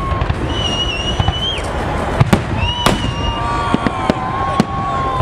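Fireworks salute: a steady low rumble of bursts with several sharp bangs, and high whistling tones held for a second or two over them.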